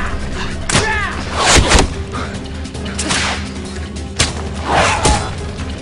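Film action-scene soundtrack from a bola scene: several sharp swishes and whip-like cracks at irregular intervals, over a low, steady music drone, with a short falling cry about a second in.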